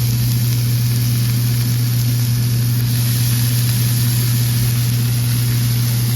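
Thick-cut bacon sizzling on a flat-top grill, heard as an even hiss, under a loud, steady low hum like a running motor.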